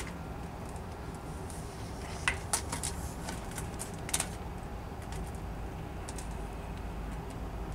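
Front-loader garbage truck running at a distance, a steady low rumble, with a short run of sharp metallic clinks and clicks around the middle.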